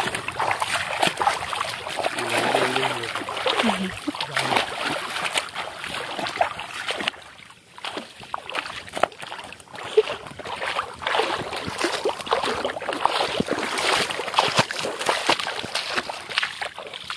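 Bare feet splashing through shallow water in steady wading steps, with a short lull about seven seconds in.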